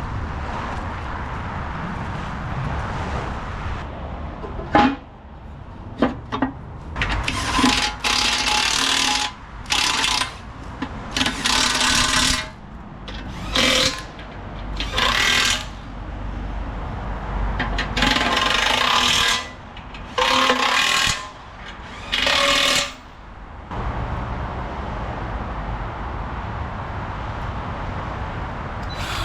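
A handheld power tool run in about a dozen short bursts, each well under two seconds, over a steady low hum.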